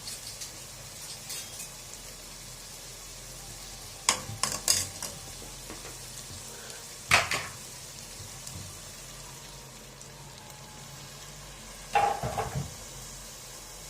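Zucchini and meat frying in a pot with garlic and tomato paste, sizzling steadily. A metal spoon scrapes and clanks against the pot in short spells about four seconds in, around seven seconds, and near the end.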